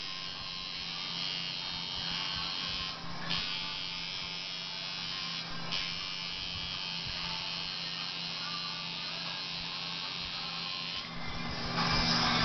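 Electric tattoo machine buzzing steadily as it needles skin, stopping briefly twice, about 3 and 5.5 seconds in.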